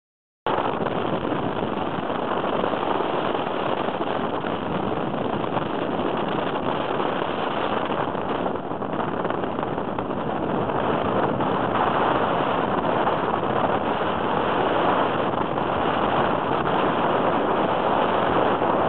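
Steady rushing airflow and engine noise in an open weight-shift microlight trike on final approach and landing on a grass strip. It cuts in abruptly just after the start and grows slightly louder about halfway through.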